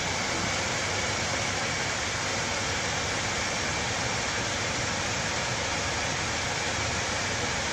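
Steady rushing noise inside a truck cab, even throughout, with a faint high whine and no distinct clicks or knocks.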